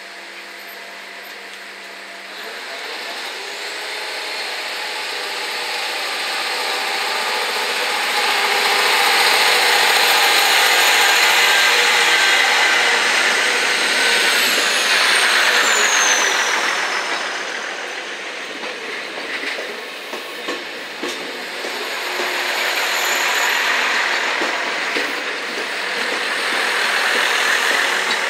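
NS DM '90 diesel multiple unit rolling slowly past at close range, its engine and wheel noise swelling as the cars pass. A high whine falls in pitch partway through, and a few clicks follow as the wheels cross rail joints.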